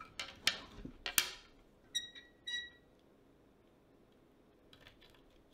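Handling of a plastic bowling-ball layout tool and grease pencil on a bowling ball: three sharp clicks in the first second or so, two short squeaks about two seconds in, then faint scratching strokes of the grease pencil on the ball near the end.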